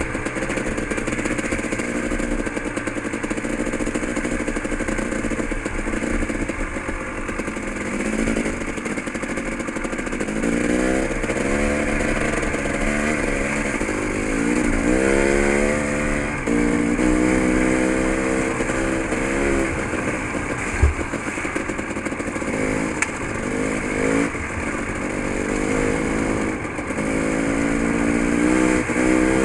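Dirt bike engine under way, revving up in repeated climbs that drop back and rise again as it accelerates through the gears. One sharp knock comes about two-thirds of the way through.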